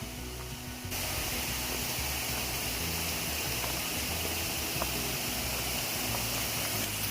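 Rushing river water, an even hiss that cuts in suddenly about a second in, over background music with a low, stepping bass line.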